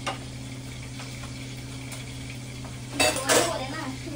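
Metal cookware clattering loudly for about half a second, three seconds in, as a steel wok with a ladle is set on the gas stove, after a single click near the start; a steady low hum underneath.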